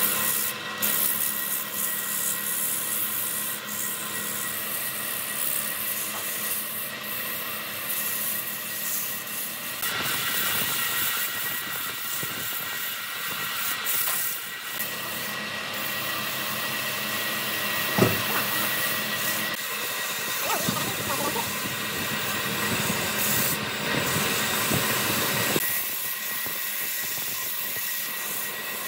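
Wood lathe running with a steady hiss and a thin whine as the spinning workpiece is worked, with one sharp knock midway through.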